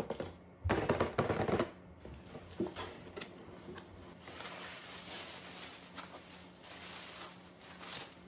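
Paper gift packaging being handled: a loud burst of scraping and rustling from the rigid cardboard box about a second in, then tissue paper crinkling and rustling as it is folded back over the last few seconds.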